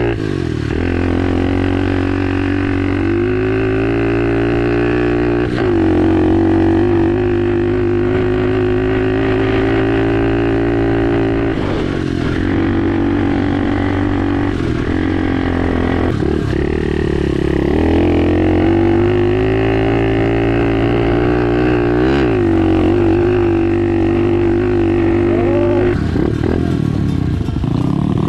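SSR pit bike's small single-cylinder four-stroke engine running at steady revs under way, its pitch dipping and climbing again every few seconds with throttle or gear changes.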